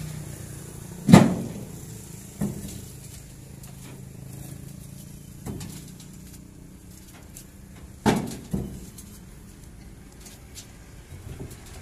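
Hydraulically pressed concrete blocks knocking as they are handled and set down on a truck's steel bed, about six sharp knocks at irregular intervals, the loudest about a second in.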